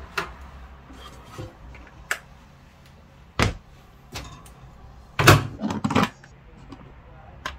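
Knocks and clunks of a plastic microwave rice cooker being lifted out of a microwave and set down on a wooden board, with the loudest clunks about three and a half and five and a half seconds in.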